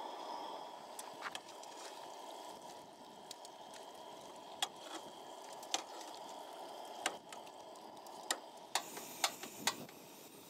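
Food frying in a pan on a portable gas camp stove: a steady low rush with scattered sharp pops and clicks, which come closer together near the end.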